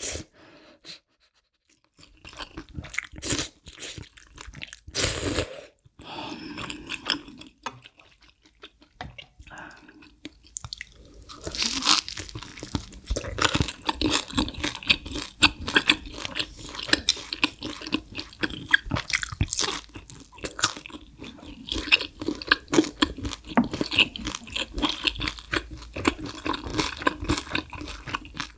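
Close-miked eating: slurps and chewing of malatang noodles at first, then, a little before halfway, dense crunching as crispy fried guo bao rou (sweet and sour pork) is bitten and chewed.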